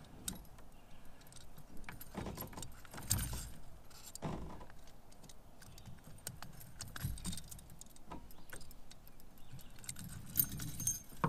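Light metallic clinking and jingling of fishing pliers working a spinnerbait's hook and blade free of a crappie's mouth, in scattered rattles.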